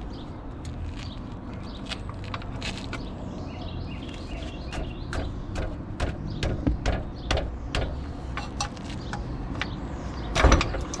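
Metal clicks and knocks of a car's front CV axle being worked out of the transmission, with a loud clank about ten and a half seconds in as the axle comes free and transmission fluid starts to pour out.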